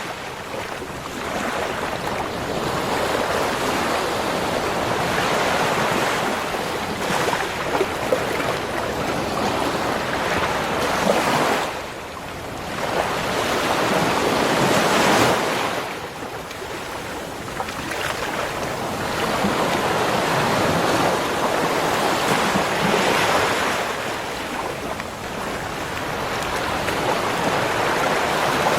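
Ocean waves breaking on a beach shore, the surf swelling and ebbing in slow surges several seconds apart.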